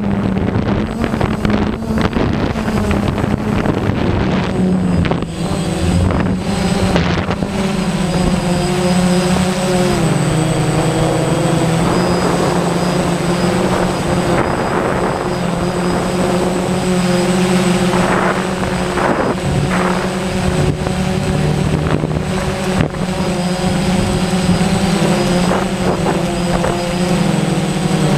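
Quadcopter drone's electric motors and propellers buzzing steadily in flight. The pitch of the buzz shifts as the drone manoeuvres, dipping about ten seconds in.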